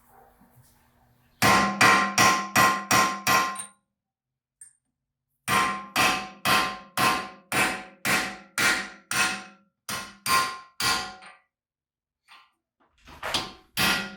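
Hammer blows on steel, each ringing out: a quick run of about eight blows, a pause of a couple of seconds, then about a dozen steadier blows at roughly two a second, and more near the end. The hammer is driving the front wheel hub and bearing into place on the BMW E46 suspension knuckle.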